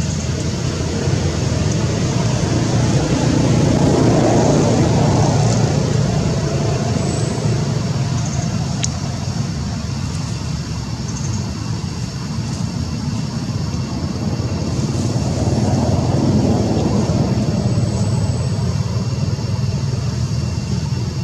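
Steady low rumble of road traffic, swelling louder twice as vehicles pass, about four seconds in and again about sixteen seconds in.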